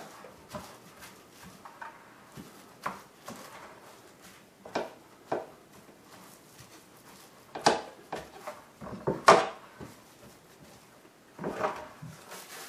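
Plastic wrap crinkling and rustling as hands press a crumbly nut crust into a metal baking pan. Scattered light crackles and taps, with two louder ones past the middle and another cluster near the end.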